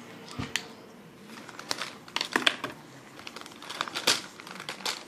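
A marker and paper being handled on a table: a string of irregular clicks, taps and scratchy rustles, the sharpest about two and a half and four seconds in.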